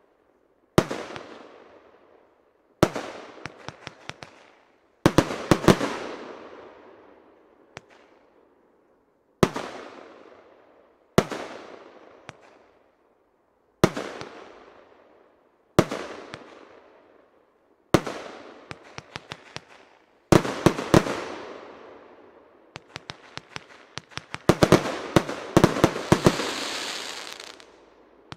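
J-Fireworks 24 Carat Gold 30 mm compound firework cake firing shot after shot, about one every two seconds. Each bang rings out with a long fading echo, and some are followed by quick runs of small pops. Near the end comes a denser flurry of bangs and popping with a hiss.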